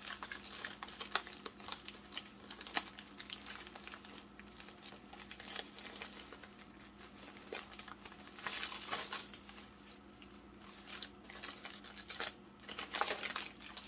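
Layers of packing wrap being pulled and torn off an object by hand: irregular crinkling, rustling and tearing.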